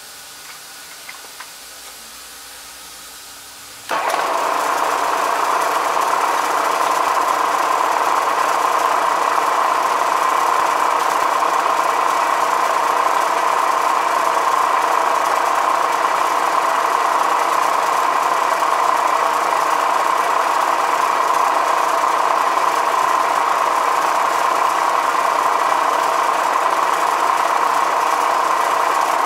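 Milling machine with a 7/32-inch end mill spot-facing the end boss of a bronze model-steam-engine casting. A quiet hum jumps suddenly to a loud, steady whine about four seconds in, and the whine holds without change as the cut goes on.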